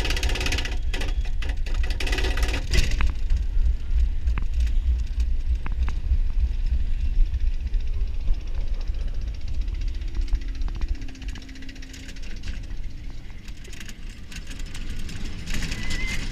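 Bobsled roller coaster car running along its open trough track at speed: a steady low rumble of the wheels mixed with wind noise on the camera, with a few sharp clicks in the first few seconds.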